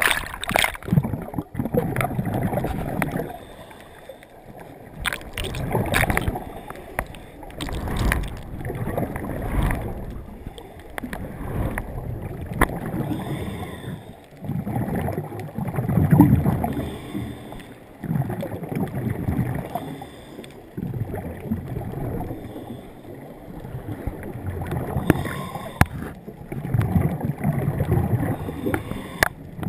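Muffled underwater rushing and sloshing heard through a GoPro's waterproof housing as it is moved through the water, swelling and fading every two or three seconds, with a few sharp clicks.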